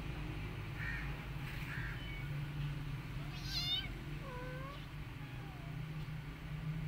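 Cat meowing: a few short meows, the clearest being a high call followed straight away by a lower mew about halfway through.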